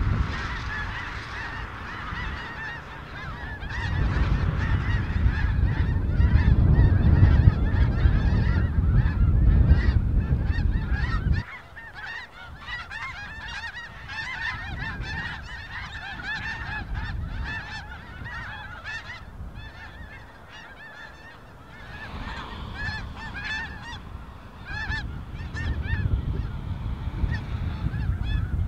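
Large flock of snow geese calling in flight overhead: a constant, overlapping chorus of high honks. A low rumble runs underneath for several seconds, stops abruptly about eleven seconds in, and comes back in the last few seconds.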